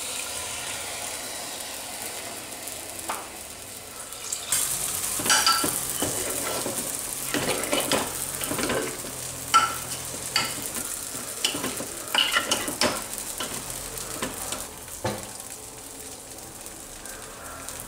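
Stuffed eggplants and masala sizzling in a pressure cooker as masala thinned with water and then plain water are poured in. A steel ladle stirs and clinks against the aluminium pot in a run of sharp knocks through the middle.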